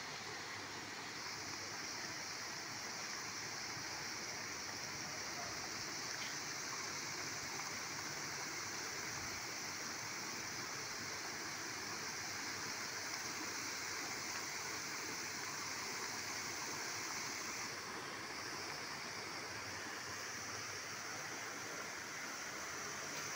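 Ornamental fountain with many water jets falling and splashing into its basin: a steady rush of water.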